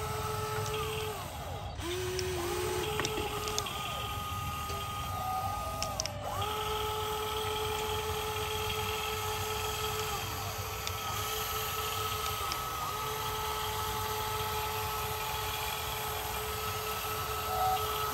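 Small electric motors of a remote-control toy excavator whining as it drives on its tracks and swings its arm. The whine starts and stops several times, sagging in pitch each time a movement ends.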